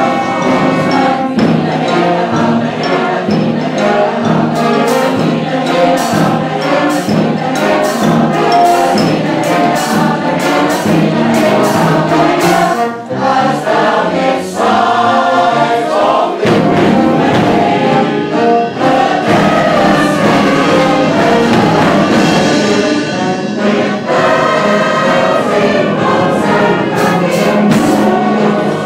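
Large amateur choir of about 100 voices singing with a youth band backing, sharp percussive hits running through the music. It is a phone recording, not very clear.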